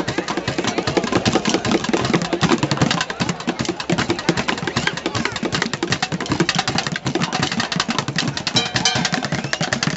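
Buckets beaten in fast, continuous drumming, a dense stream of strokes without a break.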